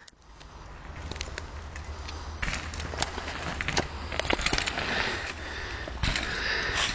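Outdoor rumbling noise on a phone's microphone with many scattered sharp clicks and knocks, fading in from near silence over the first second.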